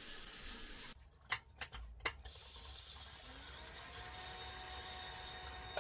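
Trigger spray bottle of glass cleaner squirting three quick times onto a mirror, short hissing bursts about a second in, followed by a low steady room hiss.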